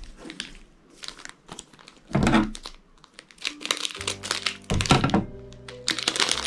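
Small toy gift packets being torn open and crinkled by hand, in irregular crackling strokes with a thump about two seconds in. Background music comes in a little past halfway.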